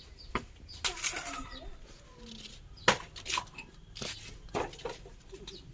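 Several sharp knocks and clatters a second or so apart, the loudest about three seconds in, with faint voices between them.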